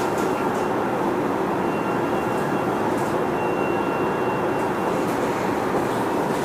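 Sotetsu 11000 series electric train heard from inside the car, running just after pulling out of a station. It gives a steady rumble of wheels and traction motors, with a faint high steady tone from the Mitsubishi IGBT-VVVF inverter for a few seconds in the middle.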